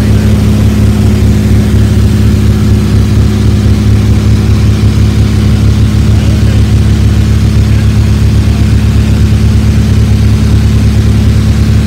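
A 1950 Beechcraft Bonanza's six-cylinder Continental E-185 engine and propeller in flight, heard from inside the cabin as a loud, steady drone with an even low hum and no change in pitch.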